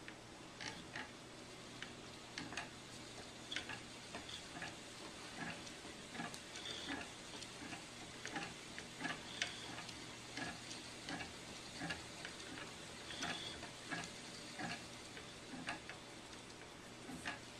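Wooden spinning wheel turning as it is treadled, giving light, somewhat uneven clicks about twice a second.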